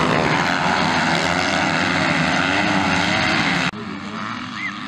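A pack of motocross bikes running hard together, a dense mass of engine noise with shifting pitches. About three and a half seconds in it cuts off abruptly, and quieter, more distant dirt-bike engines follow.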